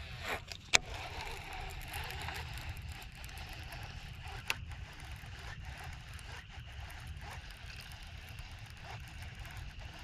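A cast with a baitcasting rod and reel, with a sharp click just under a second in, then the reel cranked in steadily with a faint, even whir, under light wind rumble on the microphone.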